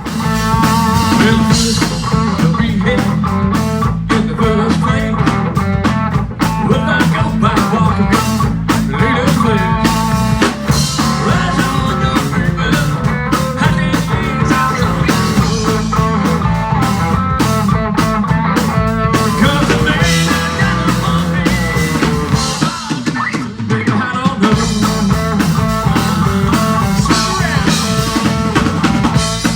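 Rock band playing: drum kit and guitar over a steady bass, coming in loudly all at once at the start.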